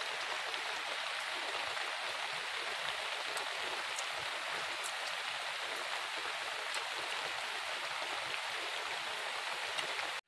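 Steady hiss of falling or running water, with a few faint clicks over it; it cuts off suddenly near the end.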